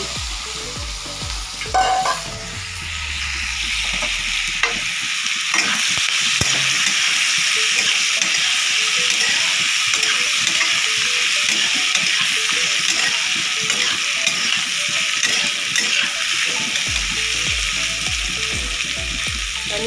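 Sliced onions sizzling in hot oil and butter in a steel wok as they are stirred and sautéed, with small scrapes and taps of the spatula against the pan. The sizzle swells over the first few seconds, then holds steady.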